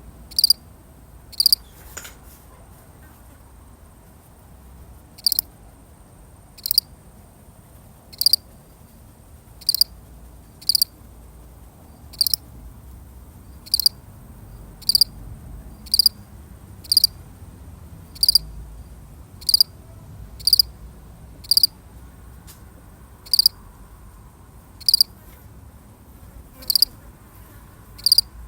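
A single field cricket chirping: short, sharp, high chirps about once a second, with a pause of a few seconds near the start before the rhythm resumes.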